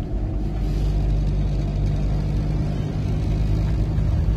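Inside the cab of a VW camper bus on the move: the engine drones steadily under road rumble.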